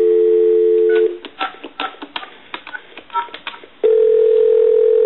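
Telephone line tones through a speakerphone's speaker. A steady dial tone stops about a second in as a number is keyed in. Then comes a quick run of keypad clicks with short touch-tone beeps, and near the end a steady ringback tone begins as the called line rings.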